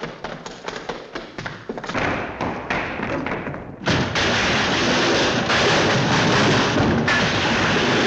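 Cartoon sound effects: a fast run of taps and thuds, then about four seconds in a sudden loud, dense noise that carries on steadily.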